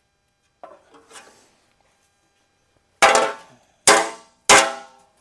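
Three sharp metallic clangs, each ringing briefly before fading, the second and third about half a second apart, after a couple of faint knocks.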